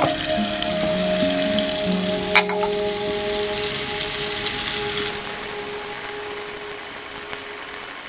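Chicken pieces frying in butter in a frying pan, sizzling steadily under a plate laid on as a press, with soft background music. A single sharp clink about two and a half seconds in.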